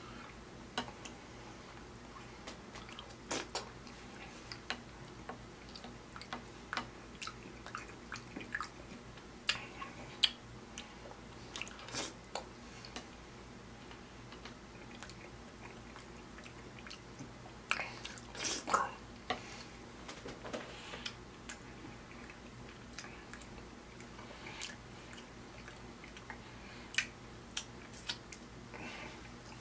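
Close-up chewing and wet mouth noises of a man eating saucy steak and baked beans, with irregular sharp smacks and clicks between quieter stretches.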